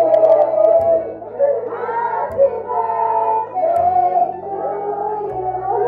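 A song with a sung melody over a bass line that steps to a new note about every second and a half.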